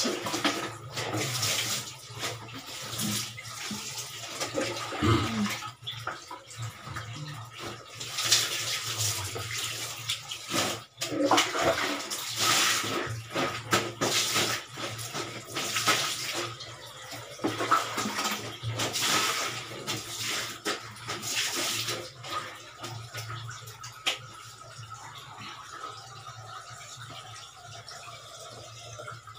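Water splashing and pouring as laundry is washed by hand in plastic basins, with water scooped and poured from a plastic dipper. It comes in irregular bursts and is quieter during the last few seconds.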